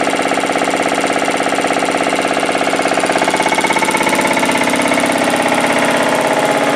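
Matsubara CMH 114A marine reciprocating air compressor, driven by an electric motor, running steadily with a rapid, even pulsing beat. Its tone shifts slightly about four seconds in.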